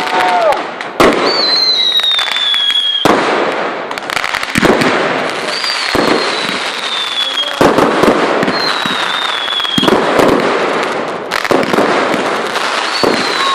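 Fireworks display: a dense barrage of crackling and sharp bangs, with high whistles that slide down in pitch, each lasting a second or two, four times.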